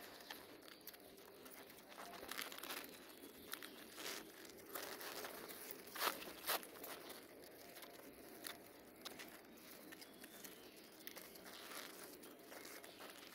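Pigeons pecking grain and pellets from a plastic tub: quiet, irregular small clicks and crunches of beaks striking the feed, with a light rattle of grain.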